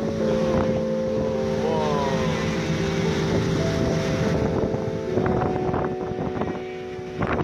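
Background music of long held chords, changing to a new chord about five seconds in, laid over wind rushing on the microphone.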